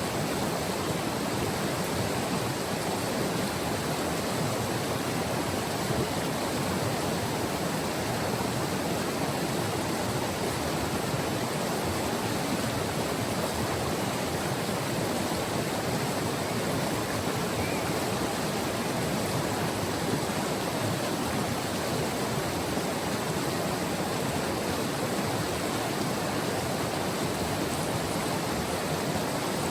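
A river's water rushing steadily over its bed, an even, unbroken rush with no distinct splashes or other sounds.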